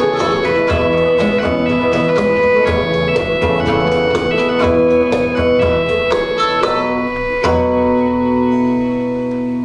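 Live Celtic band music, a chorus of sustained instrument tones over sharp regular beats, closing the song on a long held final chord that starts about two-thirds of the way through.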